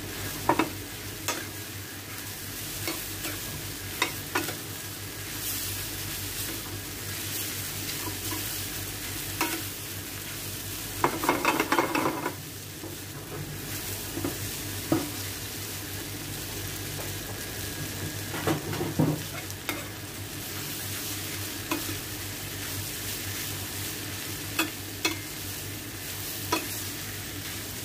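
Sliced chicken, bell peppers, onions and mushrooms sizzling in a stainless steel pan as they are stirred. A metal spatula scrapes and knocks against the pan now and then, with bursts of clattering stirring about eleven seconds in and again at about eighteen seconds.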